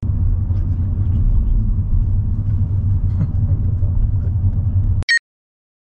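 Steady low rumble of car road noise while driving, which cuts off suddenly after about five seconds, followed by a brief high-pitched tone.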